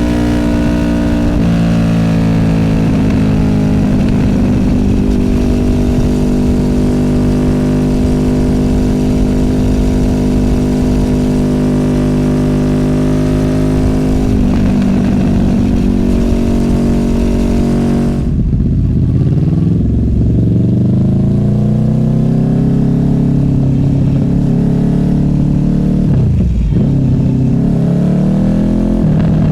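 Honda VFR800F's V4 VTEC engine through an SC Project Conic exhaust, running at steady revs while cruising. About two-thirds of the way through the throttle closes, then the pitch rises as the bike pulls again, with a brief dip near the end like a gear change.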